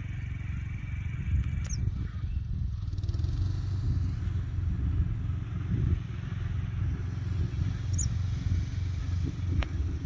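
Wind buffeting the microphone: an uneven low rumble. Two short high bird chirps come through it, one about two seconds in and one near eight seconds.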